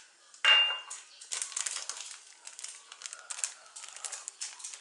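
A ceramic mug clinks once against the counter with a short ring, then a plastic bag of puba (cassava flour) crinkles and rustles as the flour is poured from it into the mug.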